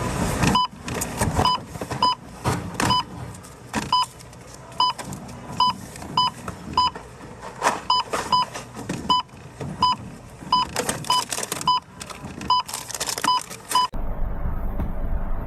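A device beeping with short, high electronic beeps over and over at uneven intervals, mixed with sharp clicks and knocks. Near the end it cuts suddenly to a steady low rumble.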